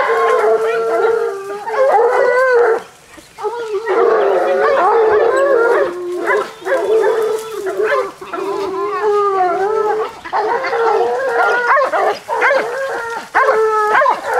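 A pack of hunting hounds baying on the trail of a wild boar. Several voices give long, wavering cries that overlap almost without a break, with a short lull about three seconds in.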